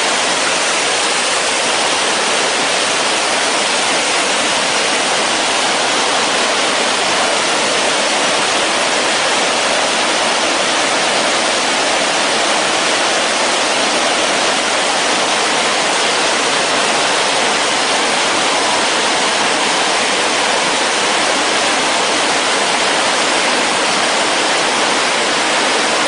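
White water of a mountain stream cascading over boulders: a loud, steady rush.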